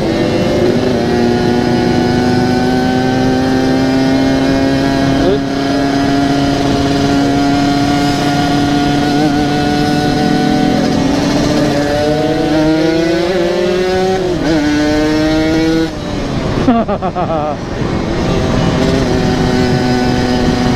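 Yamaha RX-King 135cc single-cylinder two-stroke motorcycle engine with an aftermarket exhaust, ridden at a steady throttle. Its pitch climbs as it accelerates about two-thirds of the way through. The throttle then shuts off suddenly, followed by a sharp loud crack and a few quick rev blips before it settles back to steady cruising.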